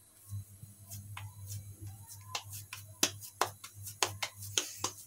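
Hands patting and pressing a soft ball of sabudana and potato dough flat between the palms: a quick run of sharp pats, about three or four a second, through the second half, over a low steady hum.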